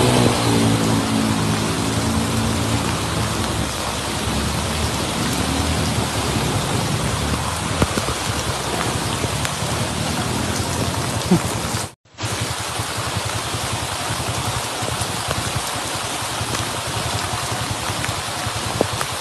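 Heavy rain pouring down as a steady hiss on flooded streets. In the first couple of seconds a motorcycle engine fades out under it, and the sound drops out for an instant at a cut about twelve seconds in.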